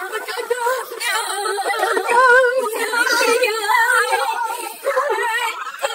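Several young people's voices yelling and laughing through a webcam voice-changer effect that puts a fast, even warble on their pitch.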